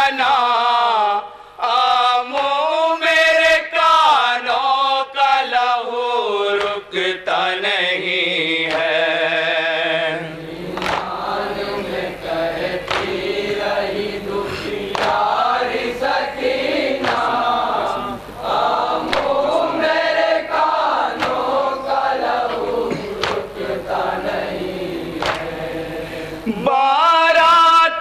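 Men of a mourning group reciting an Urdu noha (lament) in unison over a PA system, the lead voices singing with a wavering, held pitch. From about ten seconds in, a fuller group of voices joins, with the slaps of hand-on-chest beating (matam) in time; the clear lead singing returns near the end.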